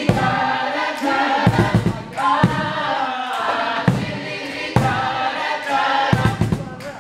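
Music with several voices singing together over a beat of low, regular thumps; it cuts off abruptly at the end.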